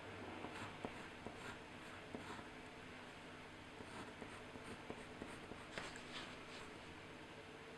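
Faint, irregular scratching of a tool on paper, with scattered light ticks, as paper-cut work is drawn or cut.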